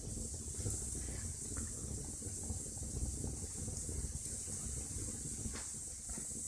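Wood fire crackling in a fireplace: a steady hiss under dense small crackles, with a few sharper pops, one near the end.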